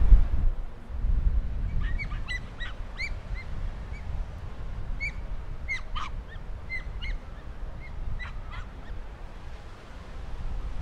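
Birds giving a run of short, repeated calls for several seconds, over wind rumbling on the microphone.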